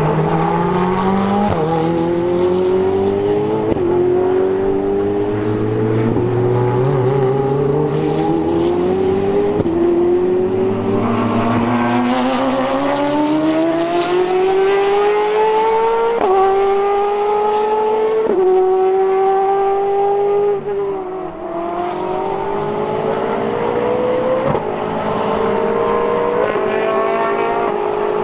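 Two Ferrari GT race cars' V8 engines accelerating hard through the gears, the pitch climbing and dropping sharply at each upshift about every two seconds. Near the end the throttle lifts briefly, then the engines pull up through the revs again.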